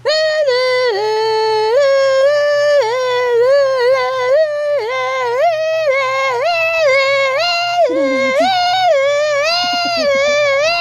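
A high wordless human-like voice holding one unbroken tone that steps and slides up and down in pitch like a tune, starting abruptly. A lower sliding sound briefly joins it about eight seconds in.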